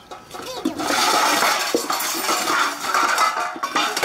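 Water rushing and splashing into a metal pot while dishes are rinsed, starting about a second in and running steadily.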